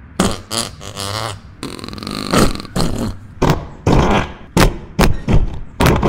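A string of fart noises: about a dozen short blasts of varying pitch, roughly two a second.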